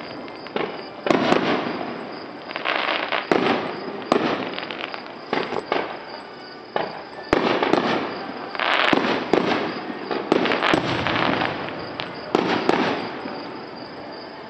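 Consumer fireworks going off in rapid succession during a finale: repeated sharp bangs with crackling after them, thinning out and growing quieter near the end.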